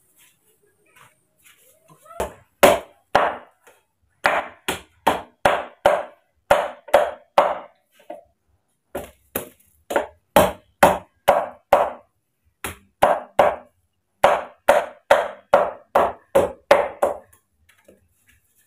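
Machete chopping into a green bamboo pole resting on a wooden block: sharp, repeated strikes, about two a second, in several runs with short pauses between them.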